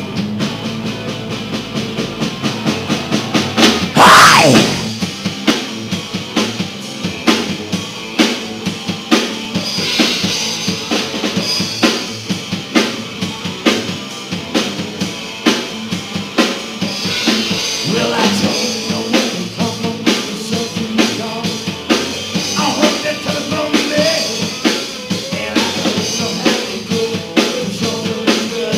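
Live rock band jamming with electric guitars, a drum kit and amplified harmonica. A drum fill runs into a loud crash about four seconds in, then a steady beat goes on under held, wavering harmonica notes.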